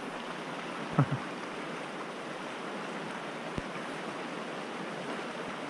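Stream water rushing steadily over the streambed. About a second in there is a short, loud falling swish.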